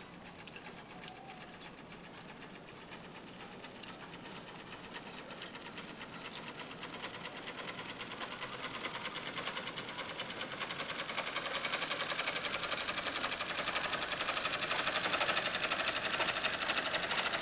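A rapid, even mechanical ticking, many ticks a second, growing steadily louder and stopping abruptly near the end. It is a soundtrack effect laid over the web-spinning timelapse, not the spider itself.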